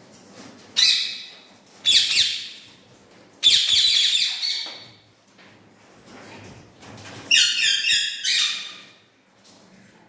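Indian ringneck parakeets squawking loudly in four harsh bouts: two short calls about a second apart, a longer call mid-way, and near the end a rapid, choppy run of calls.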